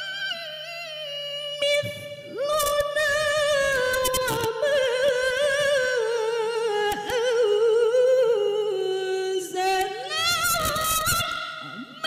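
A woman's solo Quran recitation in the melodic tilawah style: long drawn-out melismatic notes with a fast vibrato, the pitch stepping slowly downward and then climbing again near the end, with short breaks about two seconds in and near ten seconds.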